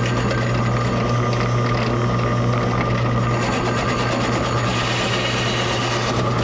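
Drill press running with a 2-inch hole saw, fed down into thin wood and raised again several times, so the rasping cutting noise swells and fades over the steady motor hum.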